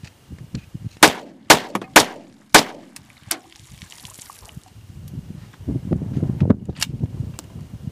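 CZ-52 pistol in 7.62x25 firing four quick shots about half a second apart, then a weaker crack. A brief hiss follows, and later low handling noise.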